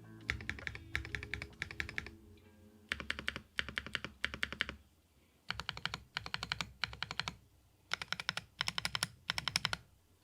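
Typing on a GrayStudio Space80 mechanical keyboard with JWK Graphite Gold switches, GMK Apollo keycaps, an FR4 plate and Poron plate foam. The keystrokes come in four quick bursts of about two seconds each, with short pauses between them.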